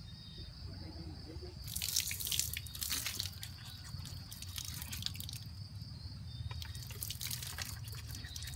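Teeth being brushed with a toothbrush, with water and toothpaste foam dripping and splashing from the mouth onto the ground; the scratchy scrubbing and splashing come in two spells, about two seconds in and again about seven seconds in.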